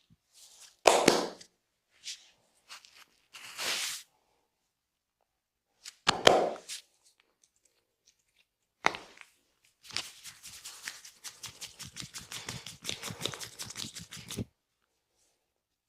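Hands working over a person's body in a massage: a few separate rubbing and slapping strokes, the loudest about a second in and about six seconds in, then about four and a half seconds of fast, even hand tapping, roughly seven strokes a second, that stops abruptly.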